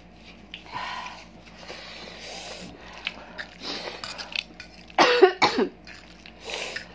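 A person coughing in a short burst of two or three harsh coughs about five seconds in, on the chili heat of 2x Spicy Samyang fire noodles, with fainter breathy sounds before it.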